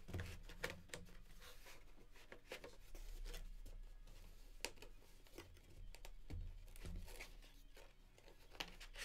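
Trading cards and plastic card holders being handled on a tabletop: scattered light clicks, rustles and crinkles over a faint, steady low hum.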